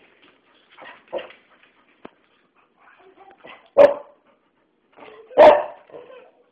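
A dog barking in play: a softer bark about a second in, then two loud barks about a second and a half apart.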